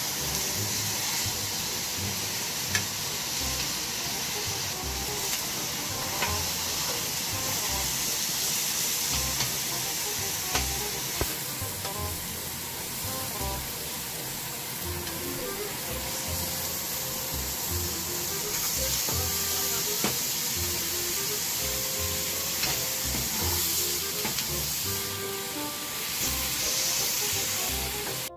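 Chicken pieces and onions frying in a pan: a steady sizzle, with a few clicks of a plastic slotted spoon as they are stirred and turned.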